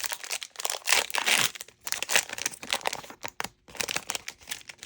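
Foil wrapper of a Topps Chrome trading-card pack being torn open and crinkled by hand: a dense, irregular run of crackling rustles.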